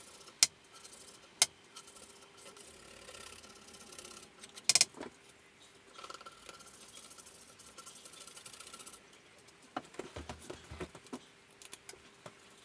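Nylon scraper working softened varnish stripper off a wooden rifle stock: scattered sharp clicks and knocks of the tool against the wood. The loudest comes about five seconds in, and a quick run of smaller ones follows near the end.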